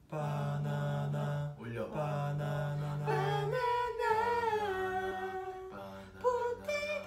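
Young men's voices chanting a long low note on one pitch, held three times with short breaks between. About three seconds in, a higher voice takes over, singing a wavering, slowly falling line over a quieter low hum.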